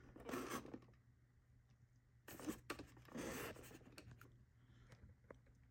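Faint handling noises as a camera is set down and the hood of a 1:18 die-cast model car is lifted: three short rustling scrapes, then a couple of small clicks near the end.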